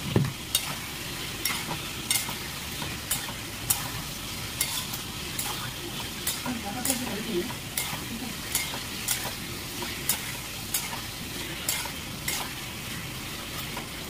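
Food frying and sizzling in a pan while a spatula stirs it, with sharp scrapes and clicks against the pan every half-second to a second.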